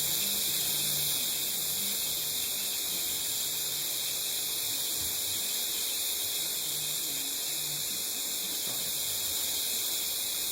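TIG welding arc burning steadily, a continuous high-pitched hiss.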